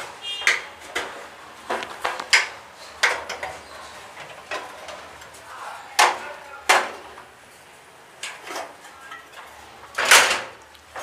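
Sheet-metal front cover of an Activa gas geyser clanking and knocking as it is lifted off and handled, a string of sharp metallic knocks with scraping between them. The loudest clatter comes about ten seconds in.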